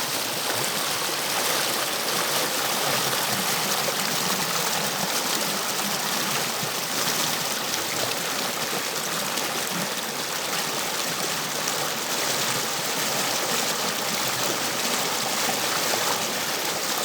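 River water rushing and splashing over rocks: a steady, even flow.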